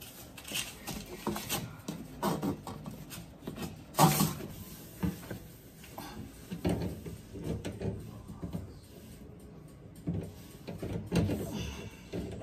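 Handling noise at the back of a washing machine: irregular knocks, clunks and rubbing as the hoses and fittings are gripped and wiped with a cloth, with one sharper knock about four seconds in.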